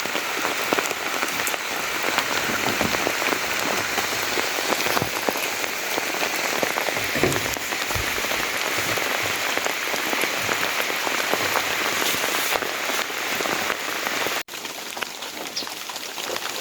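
Steady rain falling, a dense hiss of many individual drops striking a surface. The level dips slightly about two seconds before the end.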